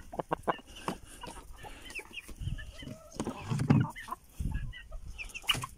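Domestic hens clucking with many short, high calls while feeding, over scattered clicks and a few low thumps.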